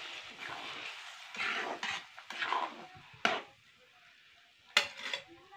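Onion-tomato masala sizzling in a metal kadai as ground spices go in, then a flat metal spatula scraping and stirring through it, with a few sharp clinks of the spatula against the pan about three seconds in and again near the end.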